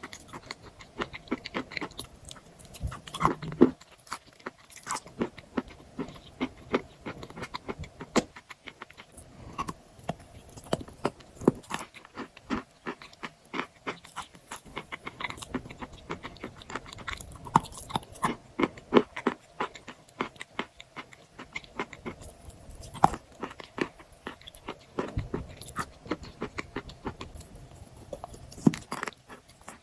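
A person biting into and chewing chalk: a continuous stream of dry crunches and crackles, with a few louder snapping bites standing out.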